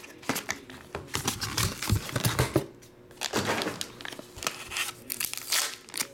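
Foil trading-card pack crinkling in irregular spells as it is handled and torn open, with a few soft knocks of box handling around two seconds in.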